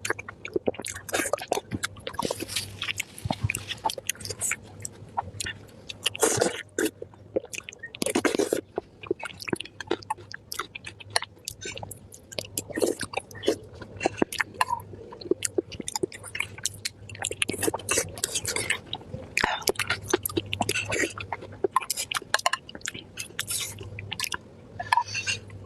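A person chewing spicy pork belly with their mouth close to the microphone: irregular wet smacks and sharp clicks, several a second, with a few longer bursts of noise.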